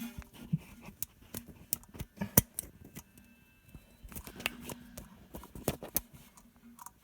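Hands unhooking a toilet flapper chain from the flush lever inside the tank: a string of small clicks and rattles of metal and plastic parts, the loudest about two and a half seconds in.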